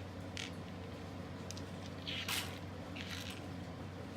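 Plastic LEGO pieces being handled: a few short scrapes and clicks about a second apart, over a steady low hum.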